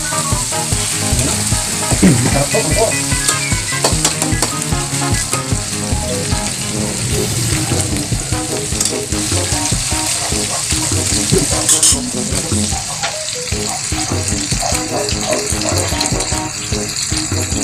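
Meat, onion and garlic sizzling steadily as they sauté in a hot wok on a gas burner.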